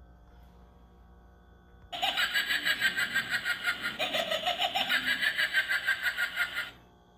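A motion-activated Halloween pumpkin decoration's small speaker plays a recorded laugh, rapidly pulsing, starting suddenly about two seconds in and cutting off after about five seconds. The light sensor is tripped by the room light being switched on and off.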